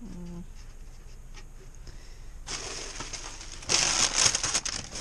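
Clear plastic trash bags rustling and crinkling as hands dig among them, loudest a little before the end. A brief murmur from a voice right at the start.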